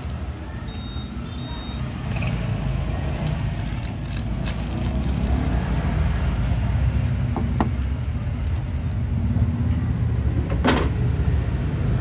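Road traffic passing, a steady low rumble, with a few sharp clicks.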